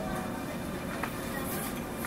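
Keio 9000 series electric train running, heard from inside the car: a steady noise of wheels and motors, with a light click about a second in.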